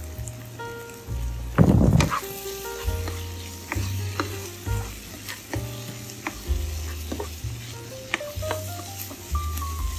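Tofu scramble sizzling in a hot nonstick frying pan while a spatula stirs and scrapes it, with short clicks of the spatula on the pan and a louder stir about two seconds in. Background music plays under it.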